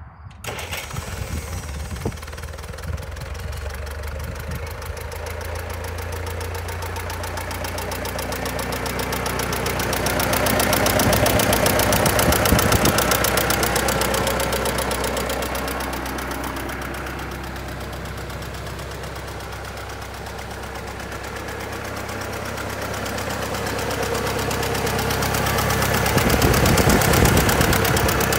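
Massey-Ferguson MF 85 tractor engine idling steadily, growing louder about a third of the way in, easing off, then louder again near the end.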